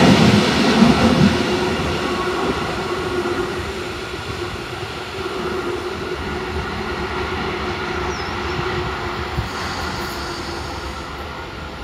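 Electric multiple unit pulling away along the rails, its rolling noise and steady hum fading as it recedes into the distance.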